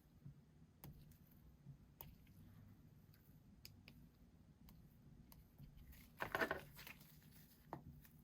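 Faint clicks and taps of hands handling a smartphone and its screen protector, with a brief crinkling, scratchy rustle about six seconds in.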